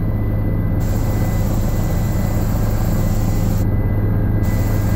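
Helicopter engine and rotor heard from inside the cabin in flight: a loud, steady low drone with a thin, constant high whine above it.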